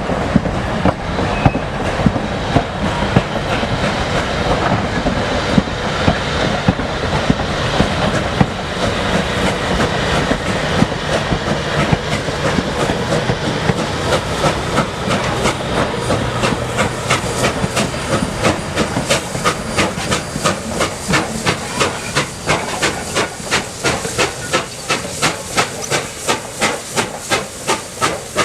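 Reading T1 #2102 steam locomotive running, with the clatter of wheels over the rails. In the second half a steady rhythm of exhaust chuffs comes up, about three beats a second.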